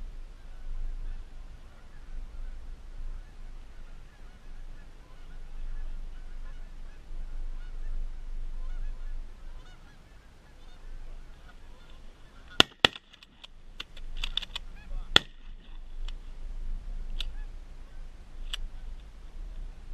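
Flock of Canada geese honking overhead. A few sharp, loud cracks come about two-thirds of the way through and are the loudest sounds.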